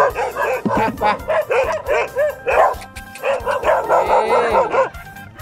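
Farm dogs barking at a stranger in quick, repeated barks at several pitches, one close by: aggressive guard-dog barking at a visitor who has come onto their ground.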